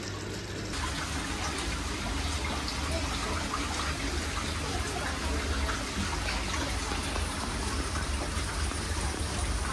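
Water running and splashing steadily in a crowded turtle tank, the gush of aquarium filter circulation over a low pump hum, growing louder less than a second in.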